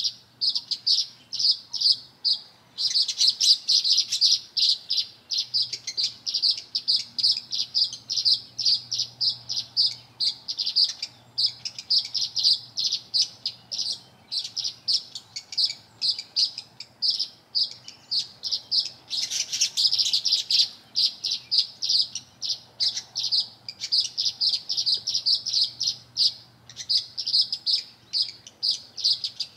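Small songbirds chirping rapidly and without a break, several short chirps a second. The chirping grows fuller and louder about three seconds in and again about two-thirds of the way through.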